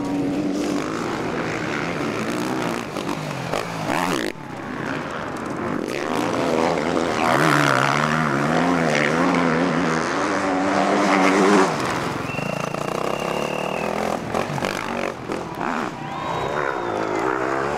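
Motocross motorcycle engines racing on a dirt track, revving up and down again and again as the riders work the throttle through the corners and climbs. The engine note is loudest and highest from about seven to eleven seconds in.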